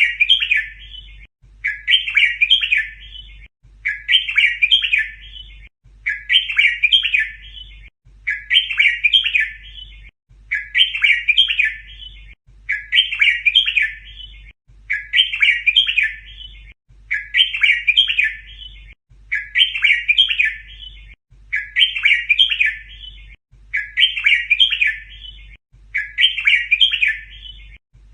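Red-whiskered bulbul song: one short phrase of quick chirping notes repeated about every two seconds, identical each time, as a looped tutor recording for teaching young bulbuls the repeated-phrase song style.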